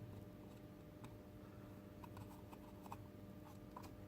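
Faint, scattered small clicks and ticks of a screw being fastened into plastic robot parts by hand, over a low steady hum.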